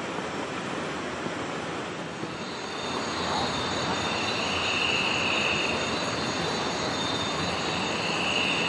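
Steady rushing of a river flowing over stones. From about two and a half seconds in, night insects add a high, steady shrill on top, with one trill that swells and fades twice.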